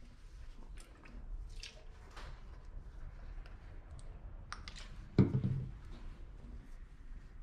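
Light clicks and rustles from a plastic ear-cleaner bottle and a cotton pad being handled, with one dull thump about five seconds in.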